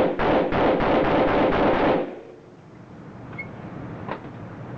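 A burst of rapid automatic gunfire, a quick string of shots lasting about two seconds that then stops, echoing in an indoor shooting range.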